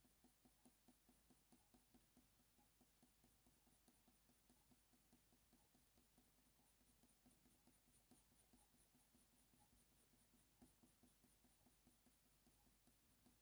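Faint scratching of a Faber-Castell Polychromos coloured pencil on hot-press watercolour paper, laying short, light strokes at about four a second, a little stronger partway through.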